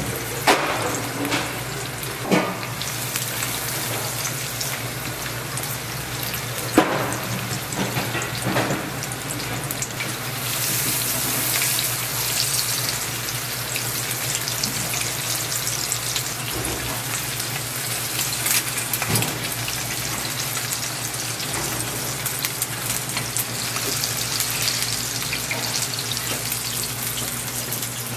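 Eggs sizzling as an omelette fries in oil in a pan, with a few sharp clicks of the spatula against the pan and a steady low hum underneath.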